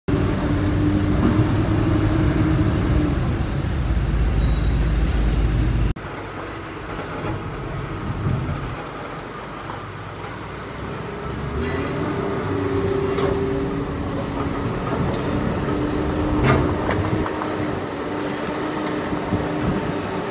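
Komatsu PC200 hydraulic excavator's diesel engine running steadily under load as it digs, with a few short knocks from the bucket. The sound is louder and deeper for about the first six seconds, then drops suddenly.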